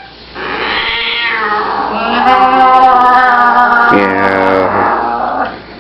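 A child's voice imitating a cat: one long, drawn-out, yowling meow lasting about five seconds, shifting lower in pitch about four seconds in.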